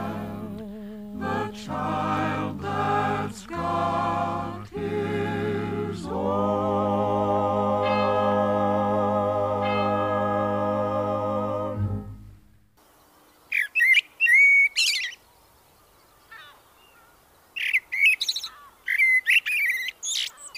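Closing bars of a recorded song, ending on a long held final chord that wavers slightly and stops about twelve seconds in. Then a small songbird sings in short bursts of high chirps and trills.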